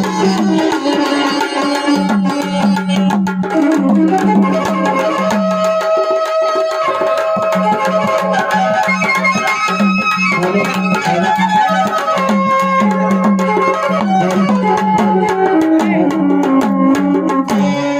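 Live ensemble music: tabla playing a rhythm under sustained notes and a melodic line from other instruments.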